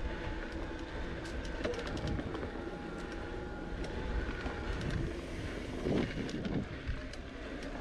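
Bicycle ridden along a sandy dirt trail, heard from a camera mounted on the rider or bike: a steady low rumble from the tyres and ground, with frequent sharp rattles and clicks as it goes over bumps, and a faint steady hum underneath.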